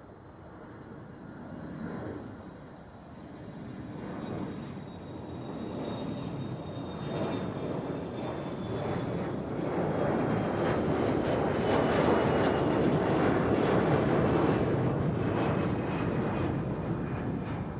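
Airplane engines growing steadily louder over about ten seconds, then easing off slightly, a dense rushing noise with a thin high whine that sinks slowly in pitch.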